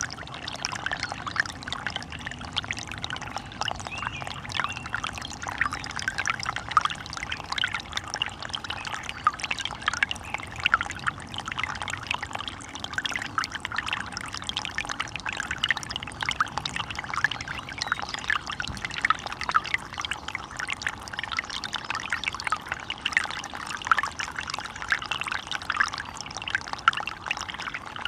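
Running water splashing and trickling steadily, a dense stream of small quick splashes with no let-up.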